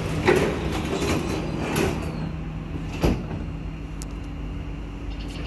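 SMRT C151B metro train's passenger doors sliding shut, ending in a sharp knock about three seconds in as they close. The train's steady low hum runs underneath.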